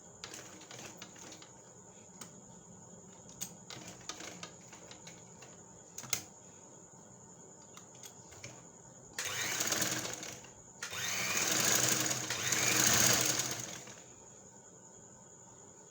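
Sewing machine stitching cloth in two runs: a short one about nine seconds in, then a longer one of about three seconds. A few light clicks from handling the machine and fabric come before.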